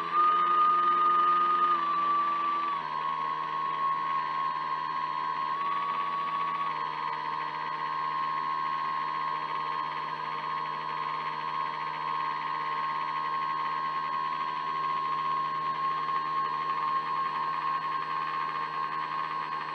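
Drive motor of an RC jetfoil model, a steady high whine with overtones. Its pitch steps down a few times in the first seven seconds, then holds level.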